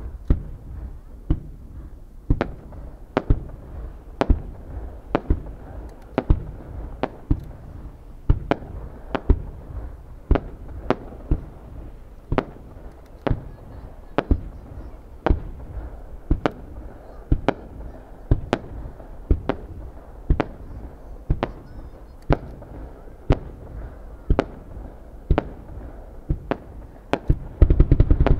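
Aerial fireworks being fired in a steady sequence: sharp booms at about two a second, each with a short echoing tail. Near the end the firing turns into a louder, dense run of rapid cracks.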